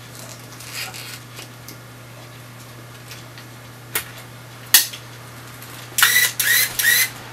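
Film being loaded into a Contax RX 35 mm SLR: light clicks of the film and camera being handled, then two sharp snaps as the back cover is shut. Near the end the camera's built-in motor runs in three short whirring bursts, winding the newly loaded film forward.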